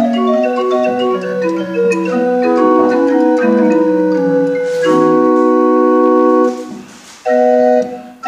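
Small table organ with wooden flue pipes being played on its keyboard: a run of sustained notes and chords, then a long held chord about five seconds in, a brief break near seven seconds, and a few more notes.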